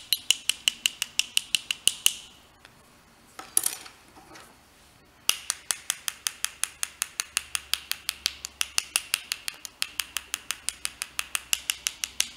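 Two paintbrushes tapped together in quick, light clicks, about six or seven a second, flicking watercolour off the loaded brush to spatter paint. The tapping pauses for about three seconds in the middle, with a short rustle in the gap.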